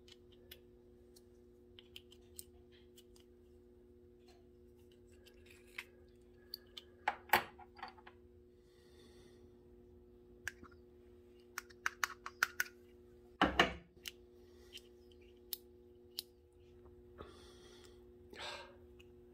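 Small metal engine parts (aluminium pistons, wrist pins and connecting rods) clicking and clinking as they are handled and set down on a workbench, with a couple of louder knocks, over a steady low hum.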